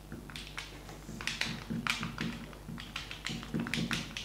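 Marker pen writing on a glass lightboard: a quick, irregular run of short strokes and taps of the tip on the glass.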